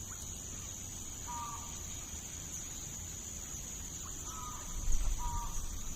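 A bird giving three short calls over a steady high-pitched drone and low rumble.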